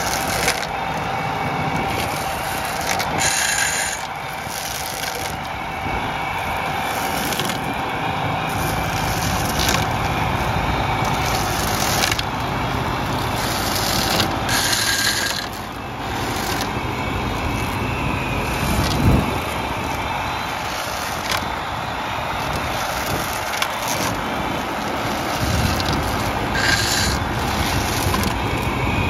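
Clemens Multiclean trunk-cleaning rotor whirling its nylon cords against young vine trunks and stakes, stripping off the shoots with a steady scraping and thrashing, over the steady running of the MTZ tractor's diesel engine. Every few seconds the cords strike something harder, giving a brief sharper hit.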